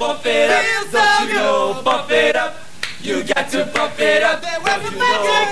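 A crowd of voices chanting and singing together, a spirited group cheer with sharp hand claps mixed in, thickest in the second half.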